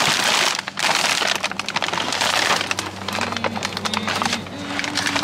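Plastic bag of frozen chicken wings crinkling and rustling as it is handled and pulled from the freezer, a dense crackle of many small crinkles.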